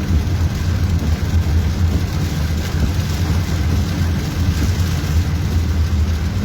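Motor vehicle traffic noise: a steady low rumble of engines in slow, flooded traffic.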